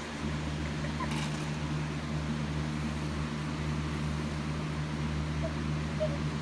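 Steady low machine hum that holds an even pitch throughout, with a faint tick about a second in.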